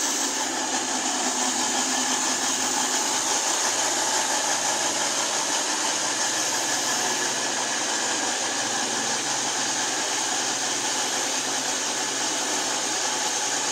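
Seven-car Class 222 Meridian diesel multiple unit running slowly past along the platform, its underfloor diesel engines and running gear giving a steady, even noise.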